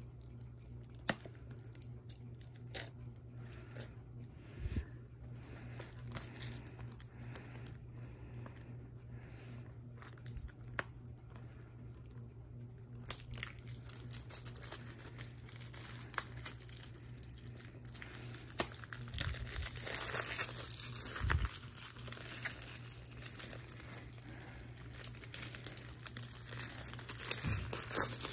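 Plastic shrink wrap on a Blu-ray case being cut with scissors, with scattered small snips and clicks, then torn and peeled off by hand. The crinkling gets denser and louder about halfway through.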